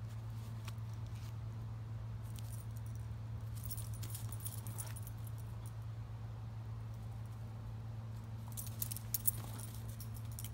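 A dog's collar tags jingling in two short bursts as she moves, a few seconds in and again near the end, over a steady low hum.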